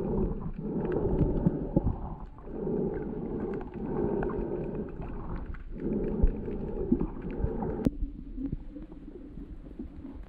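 Muffled underwater water noise picked up by a submerged camera: a low rumble and sloshing that swells and fades every couple of seconds, with scattered small clicks. A sharp click comes near the end, and after it the sound is quieter.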